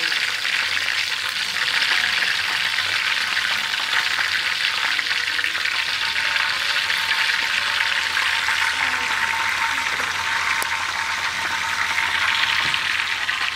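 Whole quails deep-frying in hot oil in a wok: a steady sizzle.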